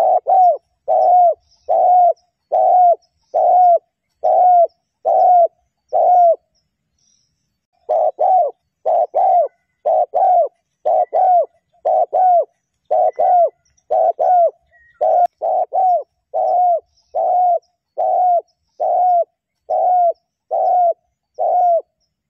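Spotted dove cooing: a steady series of short coos, about one a second, with a brief pause about six and a half seconds in.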